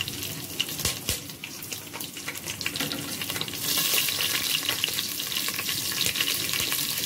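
Green chillies and whole spices (shahi jeera, cardamom, cloves, bay leaf) sizzling in hot oil and ghee in an aluminium pot, with scattered crackles. The sizzle grows louder and denser about halfway through.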